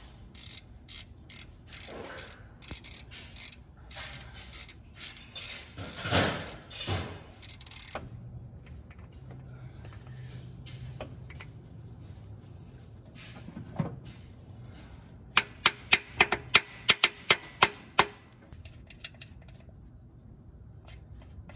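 Hand ratchet wrench clicking as it turns a bolt in an aluminium cylinder head, in irregular runs of clicks with a louder clunk about six seconds in. Past the middle comes a quick run of about a dozen sharp clicks over some three seconds.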